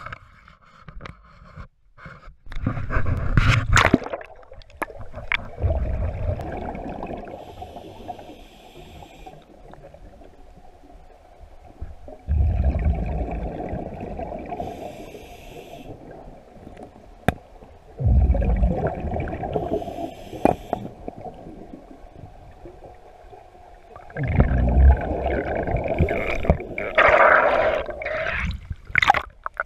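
Scuba diver breathing underwater through a regulator: bursts of exhaled bubbles rumbling and gurgling about every six seconds, with a thin high hiss between them. A few knocks in the first seconds.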